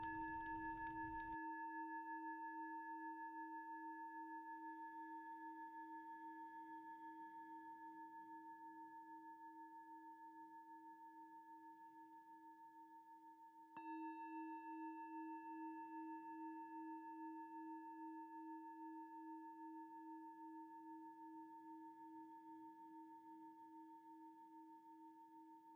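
Singing bowl ringing with a slow pulsing wobble and fading away. It is struck again about halfway through and rings down once more.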